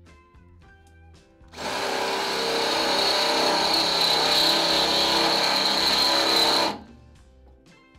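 Cordless DeWalt 20V drill boring a half-inch twist bit through the steel edge of a loader bucket, opening up a pilot hole. It starts about a second and a half in, runs steadily with a high whine for about five seconds, and stops abruptly. Background music plays underneath.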